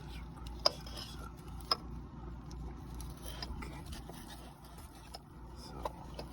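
Handling noise: two sharp clicks about a second apart, then lighter clicks and scraping, over a low steady hum.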